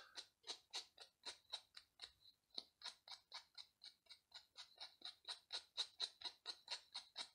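Small file rasping back and forth on the carbon stem of a float, shaping its end to a point: faint, even strokes about four a second.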